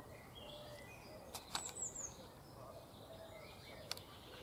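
Faint birdsong: several short chirps and twittering calls from small birds, with a few light clicks.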